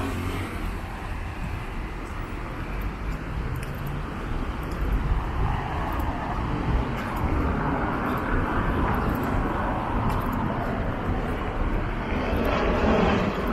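City street traffic: cars passing close over cobbles, with a steady low rumble. Tyre noise swells around the middle and again near the end.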